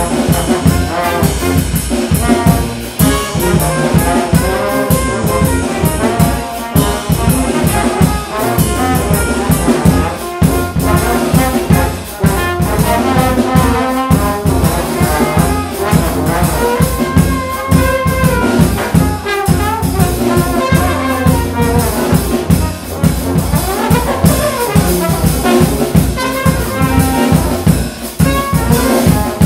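Brass ensemble of trumpets, trombones and tuba with a drum kit playing a composed piece, with several melodic lines moving over a steady drum pulse.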